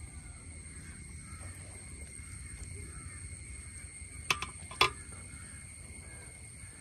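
Quiet outdoor ambience: a steady low background rumble with a thin, steady high-pitched whine over it, and two sharp clicks about half a second apart a little past the middle.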